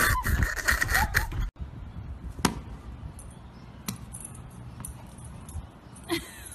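A loud, noisy stretch that cuts off suddenly after about a second and a half. Then a few sharp taps, a tennis ball bouncing on pavement.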